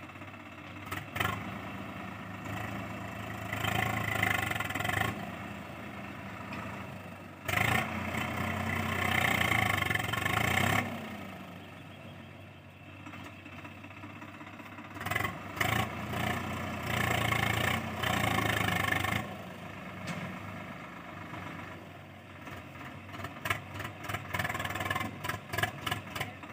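Swaraj 744 XT tractor's diesel engine running under load while pulling a trailer heaped with soil, revving up in several longer surges and easing back between them. Sharp clattering clicks come in near the end.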